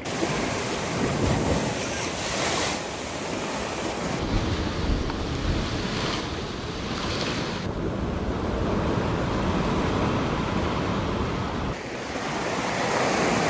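Steady rushing noise of moving water, with wind buffeting the microphone. The sound shifts abruptly about four seconds in and again near the end.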